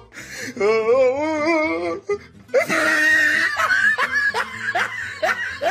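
Laughter added over the picture with music: a wavering, drawn-out voice about half a second in, then a long run of quick rising laughing syllables.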